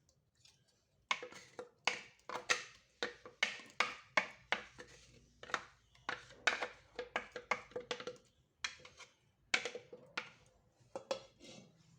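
A utensil repeatedly knocking and scraping against a blender jar and pot as thick lemon puree is emptied out, irregular sharp knocks about two or three a second.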